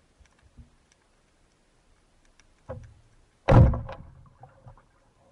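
Band-powered speargun fired underwater: a sudden loud slap of the rubber band and shaft release about three and a half seconds in, dying away quickly, with a softer knock just before it.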